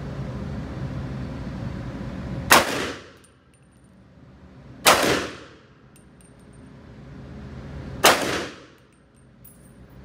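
Three single shots from an AR-15-style rifle, about two and a half and then three seconds apart, each with a short echoing tail off the walls of an indoor shooting range.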